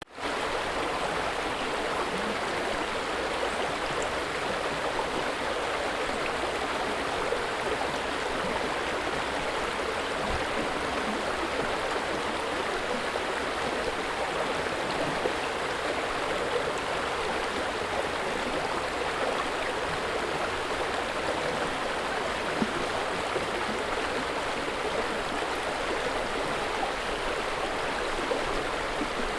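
River water flowing steadily, a continuous rushing and babbling.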